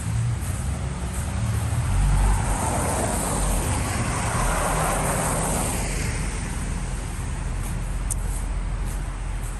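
Wind buffeting the microphone in a steady low rumble, with a vehicle driving past whose noise swells and fades between about two and six seconds in.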